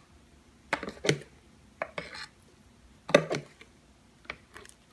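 Metal measuring spoon clinking and scraping against a spice jar as chili powder is scooped out, a few short clinks spread over several seconds.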